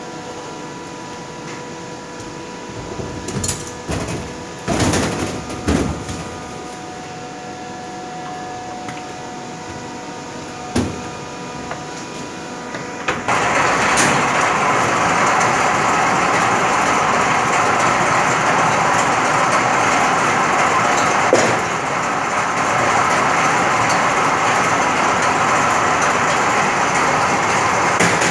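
A steady machine hum with a few knocks and thuds as blocks of ice are handled. About halfway through, an ice crusher starts suddenly and runs with a loud, steady noise as it crushes block ice.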